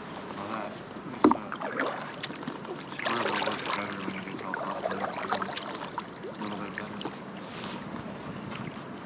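Kayak paddle strokes: the blade dipping and pulling through the water with splashes and drips, loudest in the middle of the stretch, with one sharp knock about a second in.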